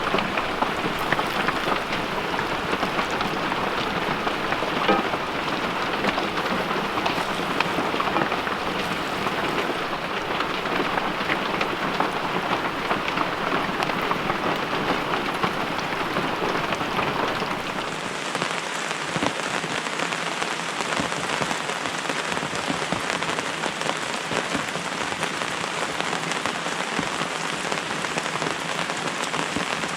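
Steady rain falling, a dense hiss of many small drop ticks. About two-thirds of the way through, the sound changes, losing its low rumble and turning brighter.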